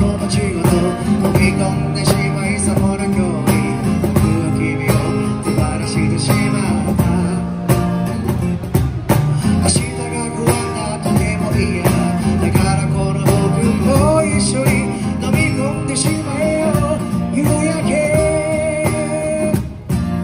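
Live acoustic band music: a man singing into a microphone over strummed acoustic guitar, with cajon and cymbal hits keeping a steady beat.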